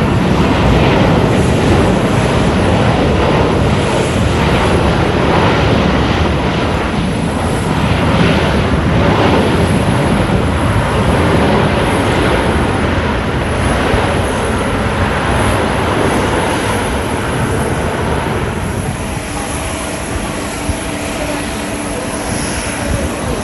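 Jet airliner's engines running loud as it passes the runway, then slowly fading away.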